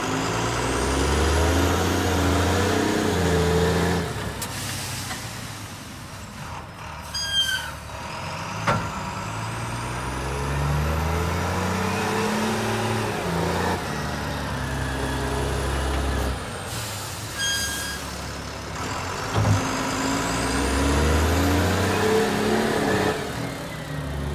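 Volvo A30E articulated dump truck's diesel engine revving up and settling back three times while the hydraulic dump body is raised, with a turbo whistle climbing on each rev. Between revs it drops to a lower run, with two brief high tones.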